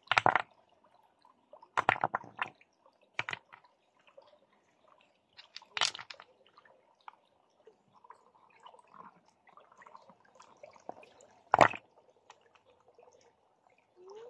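Short splashes and sloshes of water in a shallow, rocky stream: five brief bursts, the loudest near the end, with a faint trickle of running water in between.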